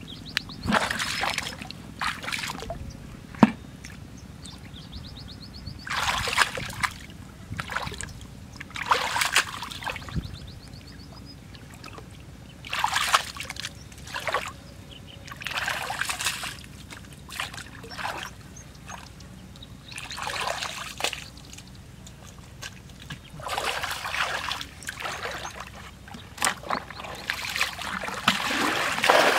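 Muddy water being bailed out of a shallow pool with a bucket: repeated splashes and sloshes as each bucketful is scooped up and thrown out, about every two to four seconds.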